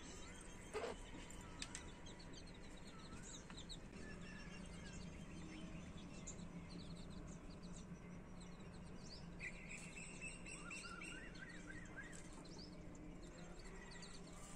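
Newly hatched chicks peeping faintly and repeatedly as they forage beside their mother hen, with a short run of rising chirps about ten seconds in, over a low steady hum.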